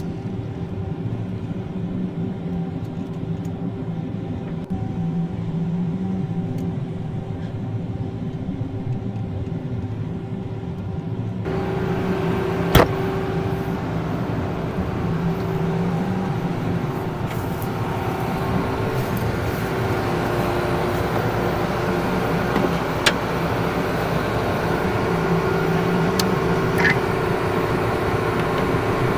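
Vehicle engine running steadily. A little over a third of the way in a brighter hiss joins it, with a sharp click soon after and a few fainter clicks later.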